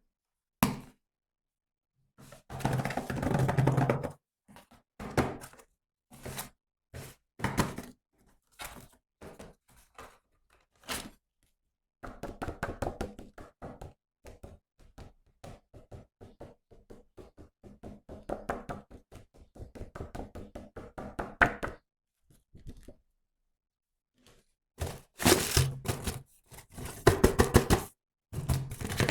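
Close-up handling of toys and their packaging: scattered knocks and thunks, a long run of rapid clicking and tapping in the middle, and a louder burst of handling near the end, broken by moments of dead silence.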